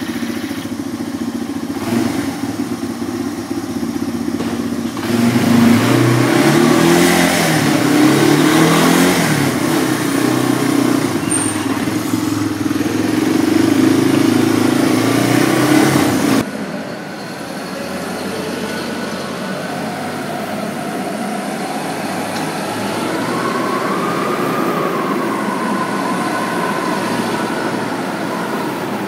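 Quad bike (ATV) engine revving and accelerating while being ridden, its pitch rising and falling. About sixteen seconds in, the sound cuts to a quieter, steadier engine with a slow rise and fall in pitch.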